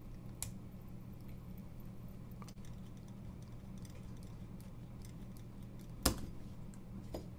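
A few small, scattered clicks and taps of metal knife parts and a bit driver being handled as a small folding knife is taken apart, the sharpest click about six seconds in, over a low steady hum.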